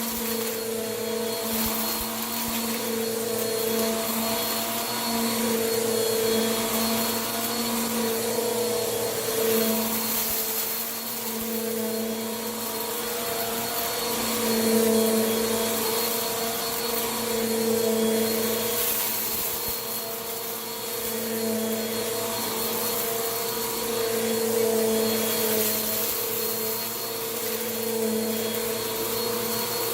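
Vacuum cleaner running continuously, a steady motor hum over rushing airflow that swells and eases every few seconds as it is worked back and forth, sucking up crunchy dirt.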